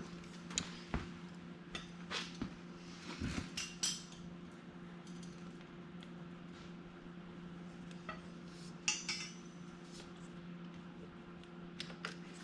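Scattered metallic clinks and taps of hand tools and small metal parts being handled, in clusters, busiest in the first few seconds and again about nine seconds in, over a steady low hum.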